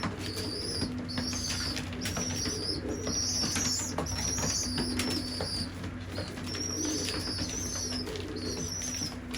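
Young racing pigeons (squeakers) giving high-pitched begging squeaks, each about half a second long and repeated over and over, with wing flapping and short clicks as they beg to be fed by the adult pigeons.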